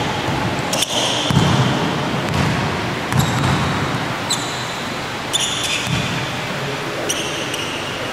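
A basketball bouncing on a hardwood court, a dull thump about once a second, with short high sneaker squeaks several times.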